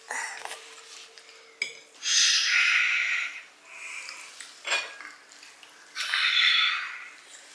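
Breakfast dishes and cutlery being handled: two sharp knocks and two stretches of scraping, rushing noise about a second long each.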